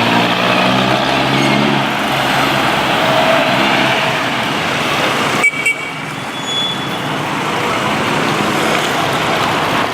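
Road traffic noise, with a motor vehicle's engine humming past in the first couple of seconds.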